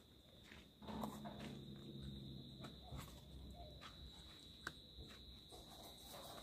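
Faint, steady, high-pitched insect trill, with scattered soft clicks. About a second in, a faint low hum lasts a second or two.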